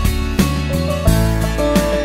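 Background music: an upbeat track led by guitar over a steady bass beat.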